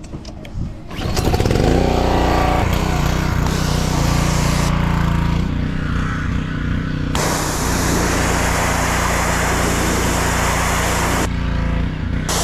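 A motor starts about a second in, rising in pitch as it spins up, then runs steadily. A loud hiss runs with it and changes abruptly several times.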